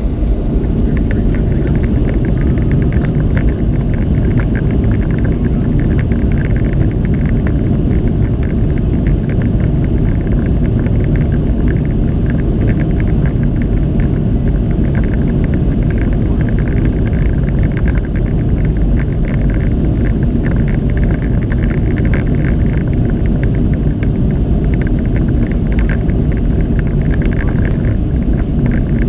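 Cabin noise inside a Boeing 737-700, heard from a window seat: the CFM56-7 turbofan engines and the airflow make a loud, steady rumble, with a fluttering hiss higher up.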